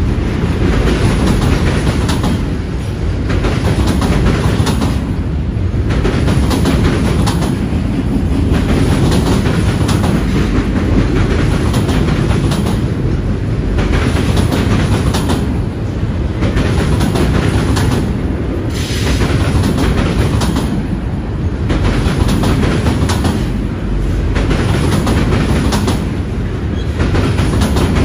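Freight train of autorack cars rolling across a steel girder bridge: a loud, continuous rumble of wheels with clickety-clack, swelling and dipping about every two and a half seconds.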